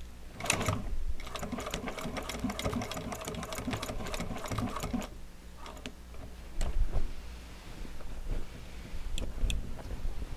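Juki DNU-1541S industrial walking-foot sewing machine stitching a zipper onto upholstery fabric: a fast, steady run of stitches for a few seconds, then slower, separate stitches.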